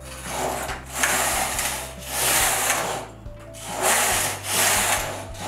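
Silver Reed domestic knitting machine carriage pushed by hand back and forth along the needle bed, a sliding, rattling swish with each pass, four passes about a second apart. The rows are waste yarn, knitted to take the stitches off the machine.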